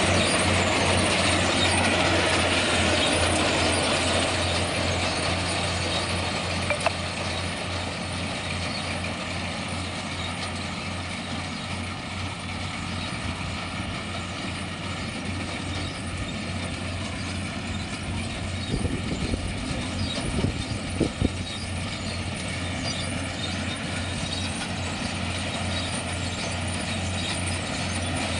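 Rice harvesting machine running steadily, a constant engine hum under a wide mechanical clatter, with a few sharper knocks about two-thirds of the way through.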